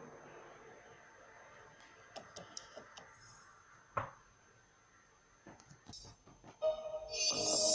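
Low background with faint, scattered clicks and one sharper click about four seconds in, then music starts shortly before the end.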